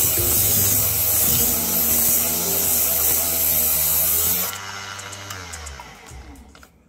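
Mini wood lathe running with sandpaper held against the spinning dowel, a steady hiss over the motor's hum. About four and a half seconds in the sanding stops and the lathe is switched off, its motor whine fading away as it spins down.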